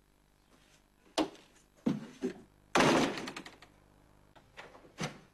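A door being opened and shut: a few sharp knocks and thuds, with the loudest, a rattling bang, just under three seconds in.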